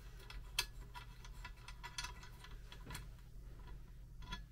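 Faint, irregular metallic clicks and ticks as a nut is turned off a VW Beetle wiper spindle by hand.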